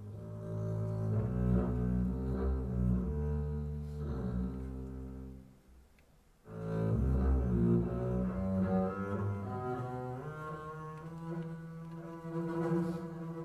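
Upright double bass played with a bow, unaccompanied: a line of sustained notes that breaks off briefly about halfway through, then resumes and climbs step by step into a higher register.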